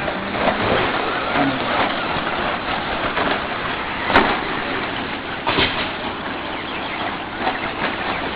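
Electric RC short course trucks racing on a dirt track: a steady din of motors and tyres, broken by scattered knocks, with a sharp crack about four seconds in and another near the end of the sixth second.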